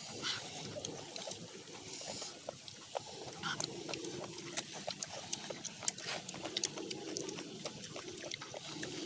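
Close-up eating sounds: chewing and wet lip-smacking of people eating with their hands, with many small irregular clicks.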